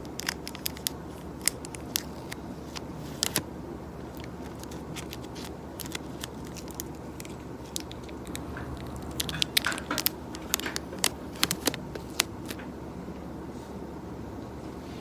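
Scattered sharp clicks and crunches, coming thickest for a few seconds past the middle, over a steady low room hum.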